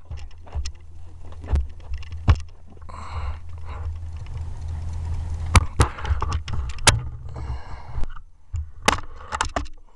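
Irregular clicks and knocks from handling an air rifle and its scope-mounted camera, the sharpest about halfway through and near the end, over a steady low rumble.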